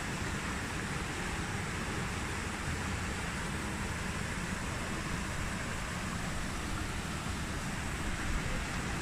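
Steady rushing of a small stream tumbling over boulders, with a low rumble of wind on the microphone underneath.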